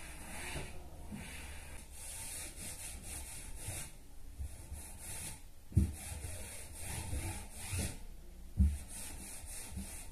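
A cloth rubbing and wiping over a wooden wardrobe, with handling noises and two dull thumps, one about halfway through and one near the end.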